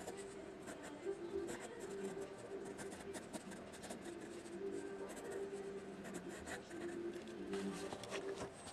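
Graphite pencil scratching on paper in quick, irregular sketching strokes.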